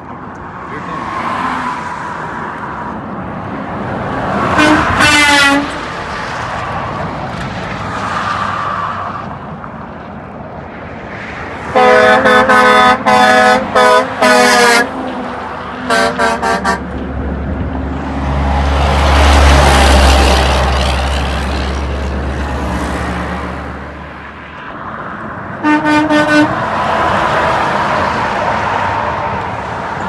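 Truck air horns blowing as trucks pass on a highway: one blast about four seconds in, a quick series of short blasts around the middle, another brief one just after, and a last short blast near the end. Between them a heavy truck passes with a low engine and tyre rumble, over steady traffic noise.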